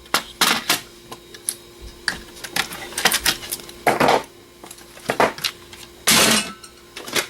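Metal DVD drive casings and parts being handled: a run of sharp clicks, clinks and knocks, with two longer rattling scrapes about four and six seconds in.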